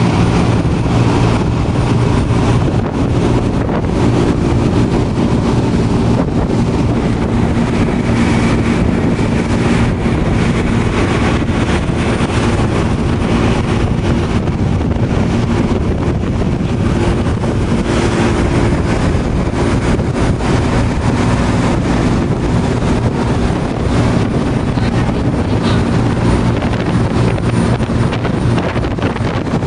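Whale-watching boat's engines running steadily at cruising speed, a loud, even drone, with wind buffeting the microphone.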